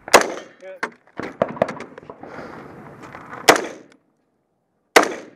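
AR-15 rifle shots: three loud single cracks, near the start, about three and a half seconds in, and just before the end. A short ringing note follows the first shot about half a second later, and there is rustling movement between the shots.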